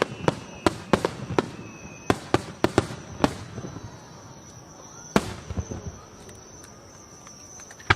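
Aerial fireworks going off: a rapid string of sharp bangs for about three seconds, one loud bang about five seconds in, then fainter scattered crackling.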